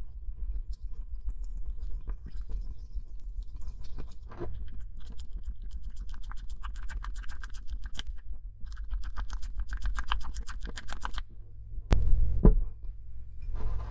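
Red silicone spatula stirring and scraping a sugar mixture against the sides of a glass bowl, in rapid strokes with a short pause midway. Near the end a couple of low knocks as the spatula is set down on the table.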